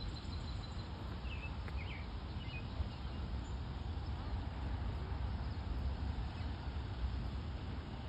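Outdoor ambience: a steady low rumble, with a few faint, high bird chirps about one and a half to two seconds in.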